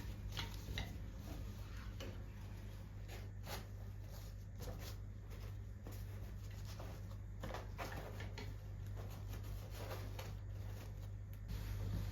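Scattered light taps and clicks of small objects being handled, over a steady low hum.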